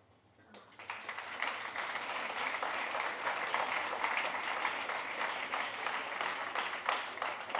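Audience applauding, breaking out about half a second in and quickly building to a steady, dense clapping.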